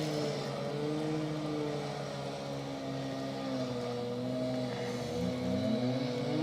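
A large engine running steadily, its pitch sagging slowly and then rising again near the end.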